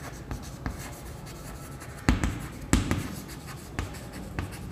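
Chalk writing on a chalkboard: light scratching and tapping, with two sharper knocks of the chalk on the board a little after two seconds in.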